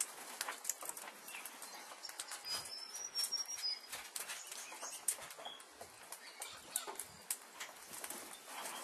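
Irregular light crackles and rustles throughout, with a short high, thin bird call about two and a half seconds in.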